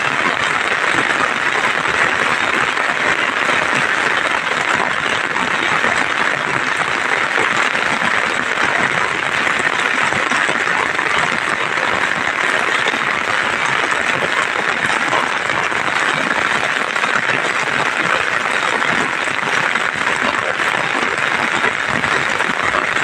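Steady rain falling, a dense, even hiss of drops that keeps up without let-up.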